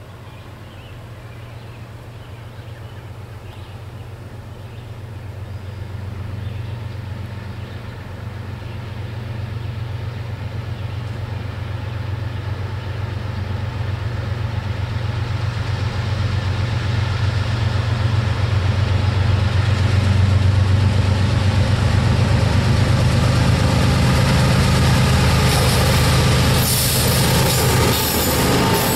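Freight train led by a Norfolk Southern GE ES40DC diesel locomotive approaching, its engine a low steady drone growing steadily louder. Near the end the lead locomotives pass close by, adding the clatter of wheels on rail.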